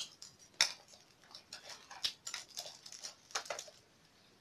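A utensil clicking and scraping against a small bowl while eating, a dozen or so short, irregular clicks, the loudest a little over half a second in.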